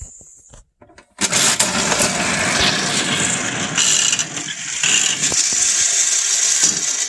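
Toy slot-machine coin bank working after its lever is pulled: a few light clicks, then a loud, steady whirring rattle of the spinning reels lasting about six seconds before it stops.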